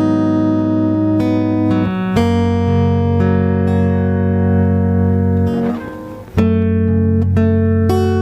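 Instrumental karaoke backing track of a Thai song with no lead vocal: held chords that change every second or two. The music dips briefly about six seconds in, then the chords come back in.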